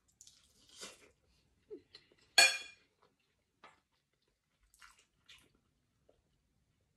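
Eating sounds: chewing and sucking on a piece of bone-in chicken, with one sharp clink of tableware about two and a half seconds in, then a few soft gulps of water.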